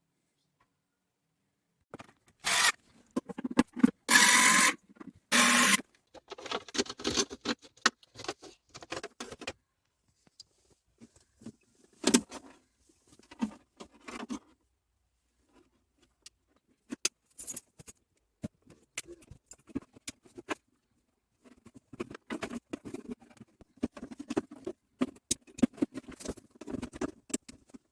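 Hands working on centre console parts with tools: scattered clicks, knocks and rattles, with three louder rasping scrapes a few seconds in.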